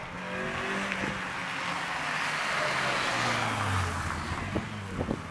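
Opel Astra F hatchback race car passing at speed. The engine note and the tyre and wind noise build to a peak about three seconds in. The engine pitch drops as the car goes by, and the sound then fades.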